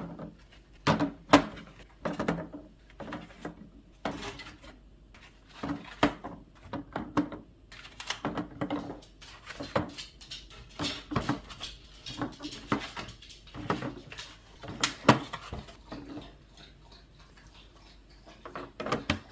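Eggs set into a clear plastic egg holder and the plastic tray handled: irregular clicks, taps and light knocks of eggshell and hard plastic, with short pauses between.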